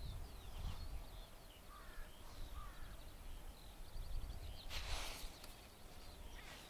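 Several birds chirping and calling over a steady low rumble, with a short burst of noise about five seconds in.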